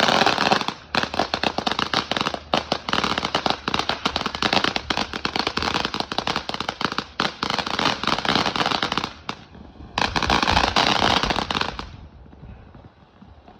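Fireworks going off in a dense string of rapid crackling pops for about nine seconds, then after a brief pause a second crackling burst of about two seconds that dies away.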